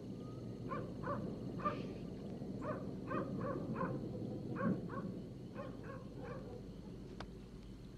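An animal calling in a quick run of about a dozen short, repeated calls that stop about six seconds in.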